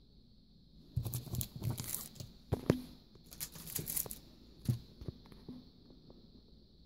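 Plastic cello packets of stick-on gems crinkling and rustling as they are handled and swapped, with a few sharp taps as they are set down. It starts about a second in and dies away after about five seconds.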